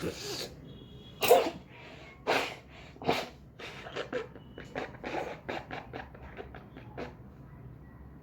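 A person sneezing: a few sharp sneezes in the first three seconds, the loudest about a second in. They are followed by a run of quicker, fainter sniffing breaths, about three a second. The sneezes are set off by tickling the inside of the nose with a pen.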